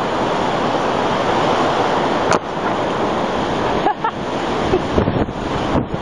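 Strong wind blowing over the microphone: a loud, steady rushing noise, with one short click a little over two seconds in.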